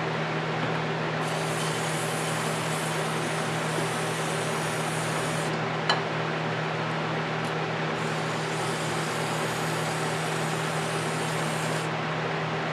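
Aerosol cleaner hissing from a spray can into an engine's open cylinder bores, in two long bursts of about four seconds each with a single click between them, over a steady low hum.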